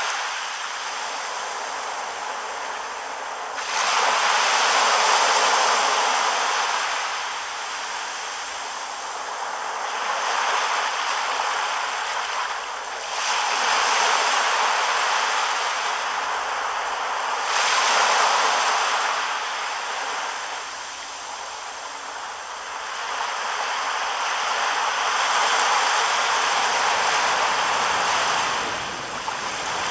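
Small waves washing up on a sandy beach, the surf swelling and fading every few seconds.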